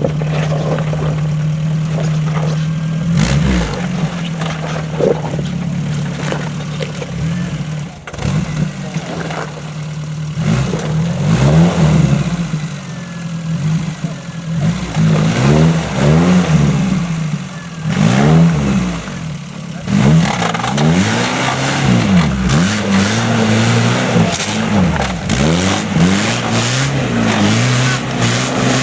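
An off-road 4x4's engine runs steadily at first. From about ten seconds in it revs up and down over and over, rising and falling roughly once a second, with a few sharp knocks.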